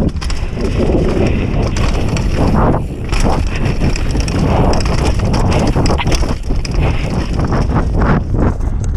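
Mountain bike riding fast down a dirt trail: tyres rumbling over the ground with a steady run of knocks and rattles from the bike over bumps, and wind buffeting the camera's microphone.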